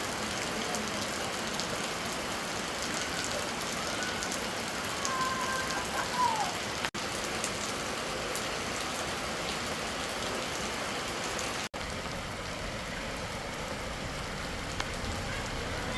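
Steady heavy rain falling, a constant even hiss, with a few faint short whistle-like tones near the middle; the sound cuts out for an instant twice.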